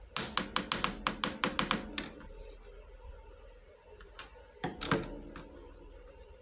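Small pieces of a miniature toy kitchen set clicking and tapping together as they are handled: a quick run of about nine light clicks, roughly five a second, then a few faint ticks and a louder clatter of two or three knocks near the end.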